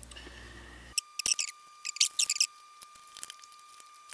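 Light clicks and rustles of thin wooden kumiko strips being handled and pressed together at their notched joints, in two short clusters with a few scattered ticks after. A faint steady high tone sits underneath from about a second in.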